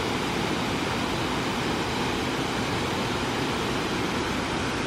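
Small waterfall rushing, a steady, even hiss of falling water.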